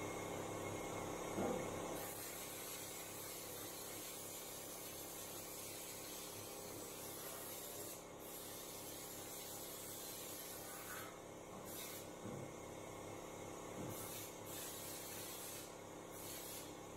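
Air-powered spray gun hissing as it sprays stone guard coating into a car door's inner cavity. The hiss starts about two seconds in and breaks off briefly a few times as the trigger is let go.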